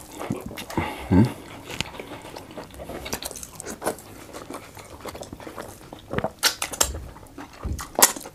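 Close-miked mouth and hand eating sounds: wet lip smacks and chewing, with fingers squishing soft pounded yam and stew, coming as quick, irregular clicks and smacks.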